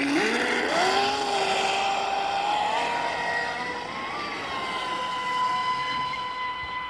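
Traxxas Spartan RC speedboat's brushless electric motor whining under full throttle: the pitch climbs in steps over the first second as the boat accelerates, then holds steady and fades as it speeds away, dropping in pitch right at the end as the throttle comes off.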